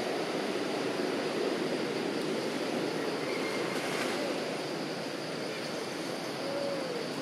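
Steady outdoor rushing background noise, like a continuous wash, with a faint short pitched call near the end.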